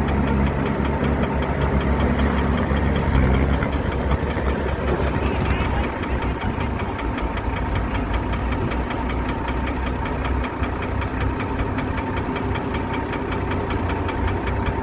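Engine of heavy construction machinery running steadily, heavier and louder for the first four seconds, then easing to a lighter, even run.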